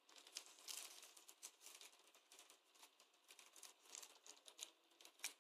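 Faint, irregular crinkling of the plastic film sleeve wrapped around a new smartphone as it is handled and picked at.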